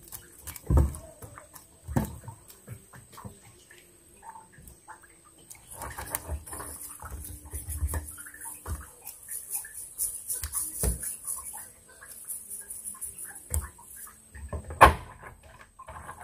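Cast-net fishing for shrimp: water splashing and dripping with irregular knocks and thumps, the loudest knock near the end. A faint steady high whine runs underneath.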